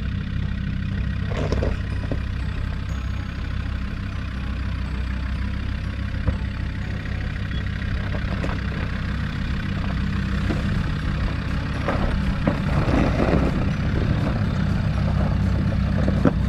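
Land Rover Discovery's engine running steadily at low revs as it crawls up a rocky track, with tyres crunching and knocking over rocks and gravel. It grows a little louder near the end as the vehicle comes closer.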